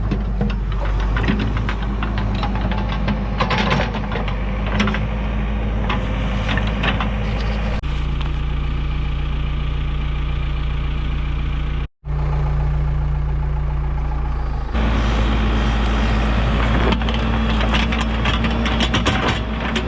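Backhoe engine running steadily, with scattered clunks and rattles of the machine at work; the engine note shifts abruptly a couple of times.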